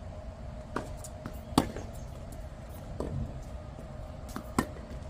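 Tennis ball rally on a hard court: sharp pops of racket strikes and ball bounces, with the loudest hits about one and a half seconds in and near the end, over a faint steady hum.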